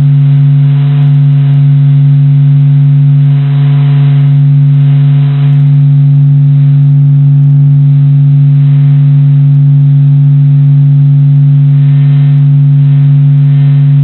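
Sonified recording of the Sun: waves from material moving on the Sun's surface, measured by the European Space Agency and converted into sound. It plays as a loud, steady deep hum with a row of fainter evenly spaced overtones above it and a light hiss, unchanging throughout.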